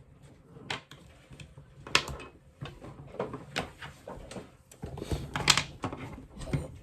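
Small plastic MathLink cubes clicking and clattering as they are handled and snapped together, in irregular clicks that bunch up a little past the middle.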